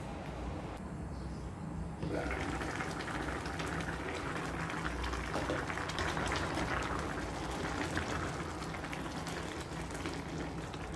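Broth with glass noodles and carrots boiling in a pot under a glass lid: a steady bubbling that grows louder about two seconds in, over a low steady hum.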